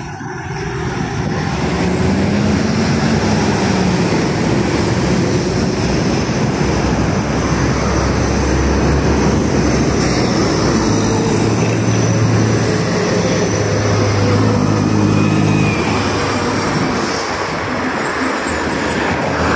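Busy street traffic with city buses passing close: engines running under load, one engine note rising early on, and a strong low engine drone later as a bus goes by.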